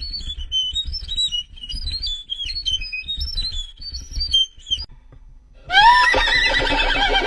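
Violin playing sound effects: a string of very high, squeaky notes that slide and step up and down. After a short pause comes a louder wavering, quivering phrase that imitates a horse's whinny.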